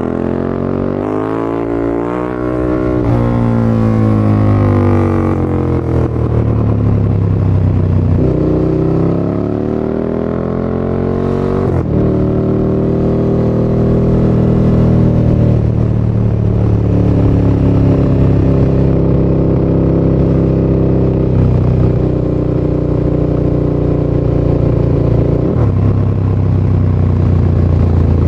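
2016 KTM 1290 Super Duke R's V-twin engine running through an Akrapovic titanium slip-on with the catalyst removed, ridden hard: its pitch climbs and drops repeatedly as it accelerates through the gears for the first dozen seconds. It then holds a steady pitch for most of the rest, with a change near the end.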